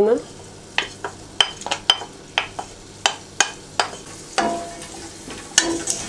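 Beef cubes and diced onion sizzling in oil in a stainless steel pot, while a wooden spoon stirs them and knocks sharply against the pot two or three times a second.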